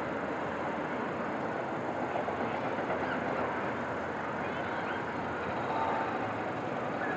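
Steady rumble of distant city traffic, with a few faint wavering whines about halfway through and near the end.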